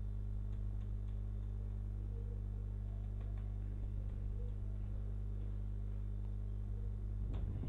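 A steady low electrical hum, with a few faint computer-keyboard clicks as code is typed and a short cluster of clicks near the end.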